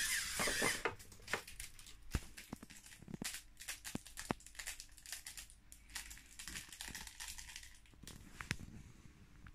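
A LEGO pneumatic air compressor, with EV3 Large Motors driving LEGO pneumatic pumps, whirs and then cuts off just under a second in as its speed regulator is turned down. After that there are only faint, scattered clicks and crackles.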